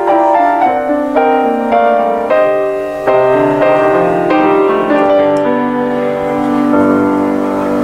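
Solo piano playing chords with a melody line on top.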